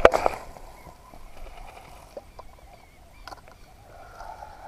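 Fishing rod cast with a spinning reel: a sharp swish of rod and line right at the start, followed by a few faint clicks from the reel as the angler takes it back in hand.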